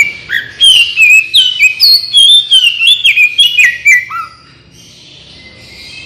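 Oriental magpie-robin singing a rapid, loud run of varied whistled notes that jump up and down in pitch. The song stops a little after four seconds in.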